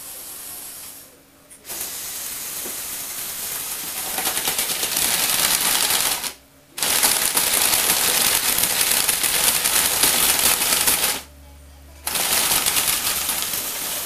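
Electric motors and plastic gearing of a Lego Technic tracked rover running, a whirring with a fast, even clatter of the plastic tracks and gears. It starts about two seconds in and stops briefly twice, once just after six seconds and once near eleven seconds, before starting again.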